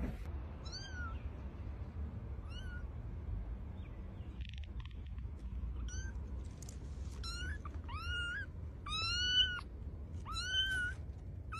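A cat meowing repeatedly, with a low steady hum underneath. There are two short, faint meows at first, then from about halfway on a run of longer, louder meows about a second apart.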